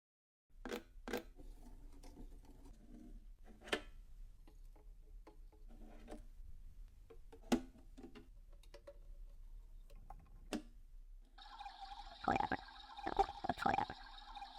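Washing machine: scattered clicks and knocks, then for about four seconds near the end a steady rush of water, as of the drum filling or water running through.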